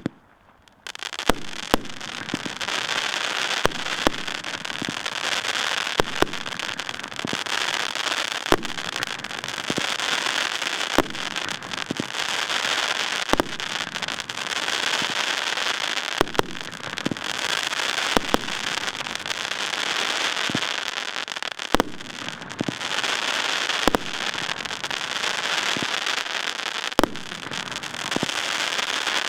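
Fireworks going off: a dense, continuous crackling that starts about a second in, with sharper loud bangs every two to three seconds.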